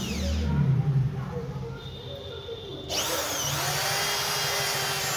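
Planet Power EID-700 RV 13 mm electric drill, freshly rebuilt with new bearings, test-drilling into a workpiece. Its motor winds down at the start, then about three seconds in it is triggered again, spins up with a rising whine and runs steadily under load.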